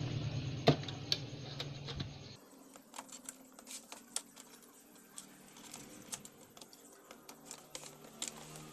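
Faint, scattered clicks and taps of plastic wire-harness connectors being worked loose and unplugged from the circuit boards of a CRT television.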